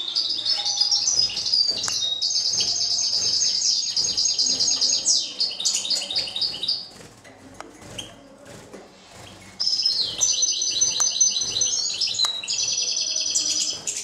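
Caged songbird singing two long phrases of rapid, twittering notes, the second starting after a pause of about two and a half seconds.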